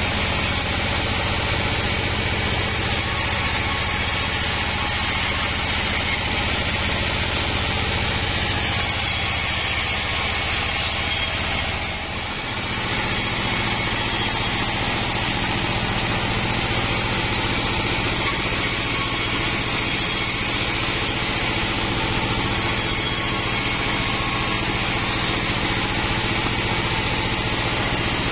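Homemade band sawmill running steadily, its engine drone and the blade's noise continuous while planks are fed through for resawing; the level dips briefly about twelve seconds in.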